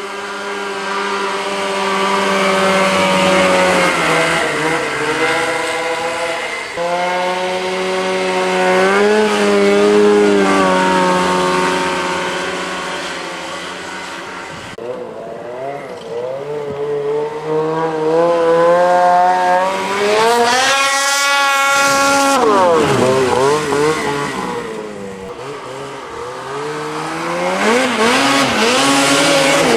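Ski-Doo snowmobile engine running hard through its exhaust, its pitch rising and falling as the throttle is worked. About twenty seconds in it climbs steeply to a high scream and then sweeps down as it passes. It climbs again near the end.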